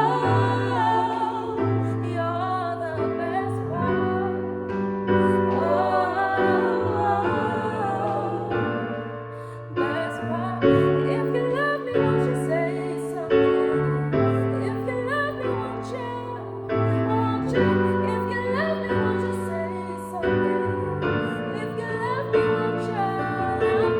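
Music: a voice singing over sustained piano or keyboard chords.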